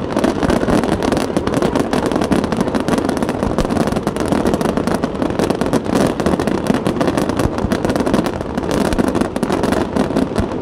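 Fireworks going off in a dense, continuous crackle of many quick pops and bangs.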